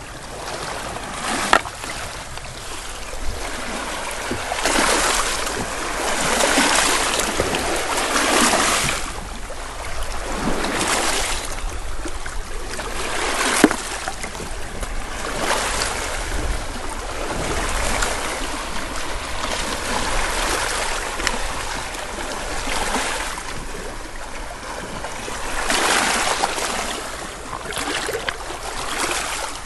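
Small lake waves lapping and washing over a pebble beach, swelling every two to three seconds. Two sharp clicks are heard, about a second and a half in and about halfway through.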